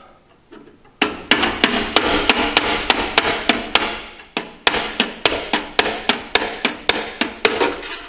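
Small hammer tapping metal on metal against a hand-held driver, about four light strikes a second, starting about a second in with a short break midway. It is driving a rust-stuck blower motor shaft out of the combustion wheel of an Attwood 8535-III RV furnace.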